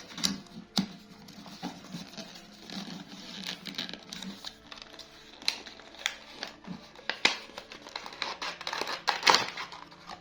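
Packaging of a microphone kit being handled and opened: irregular rustles, crinkles and small clicks, the loudest cluster about nine seconds in, over quiet background music.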